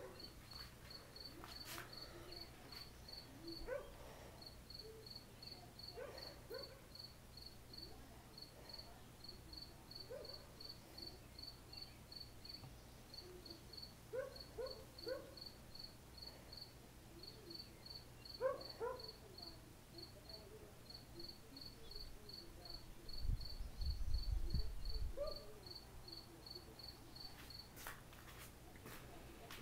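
A cricket chirping steadily, about three chirps a second with short pauses, with faint short calls now and then and a brief low rumble about 23 seconds in.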